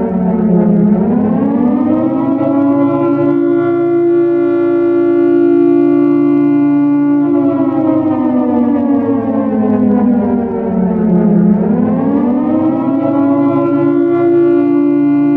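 Modern air raid siren wailing, pitched down. It climbs from a low point about a second in and holds a steady tone, slides slowly down over several seconds, then climbs again and holds near the end.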